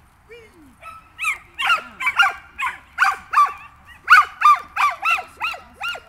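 High-pitched dog barking: a quick string of short barks, roughly two a second, starting about a second in.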